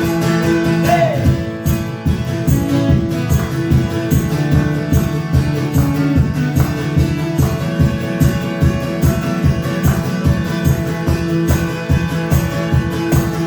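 Guitar strummed in a steady rhythm through an instrumental break of a song, with a single shouted "Hey!" about a second in.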